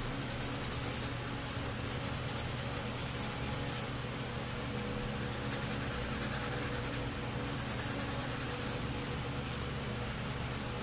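Eagle Abrasives K-grit sanding sheet on a hand block being rubbed back and forth over primer on a plastic hood: rapid, scratchy strokes in four runs with short pauses, stopping about nine seconds in. A steady low hum runs underneath.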